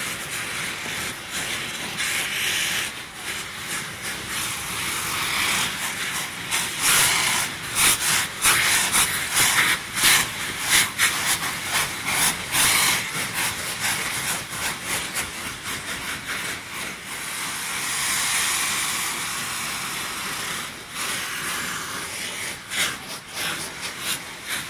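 Saites, hand-made gunpowder rockets, hissing loudly as they spray sparks, with many sharp cracks and pops, thickest around the middle.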